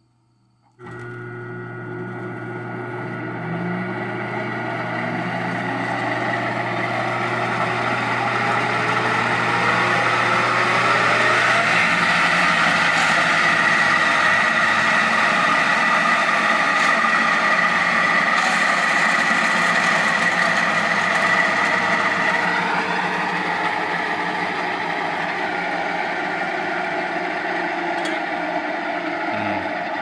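Peterson ASM electric sawmill switched on about a second in: its three-phase motor and saw blade spin up, with a whine that rises in pitch and loudness over about ten seconds, then runs steadily. This is the mill running with the missing phase restored. The pitch dips slightly about 23 seconds in.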